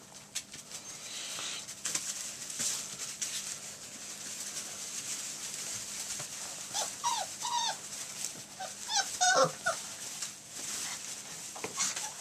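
Retriever puppies, nearly six weeks old, playing and tugging at a leash: two clusters of short high yips and whines past the middle, with scuffling in wood-shaving bedding between them.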